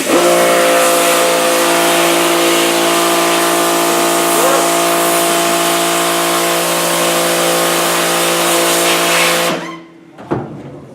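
Pressure washer spraying a screen-printing screen to blast off the stencil emulsion: a loud, steady water hiss over a steady pump hum. It starts at once and cuts off suddenly near the end as the spray is stopped.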